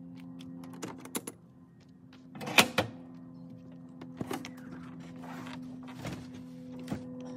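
2004 Aliner A-frame pop-up camper being opened by hand: a few latch clicks, then a sharp clunk about two and a half seconds in, followed by the hinged roof panels scraping and knocking as they are pushed up.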